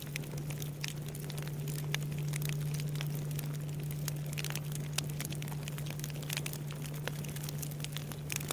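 Wood fire crackling with frequent sharp pops, over the low, steady hum of a Japanese temple bell (bonshō) still ringing out from its last strike.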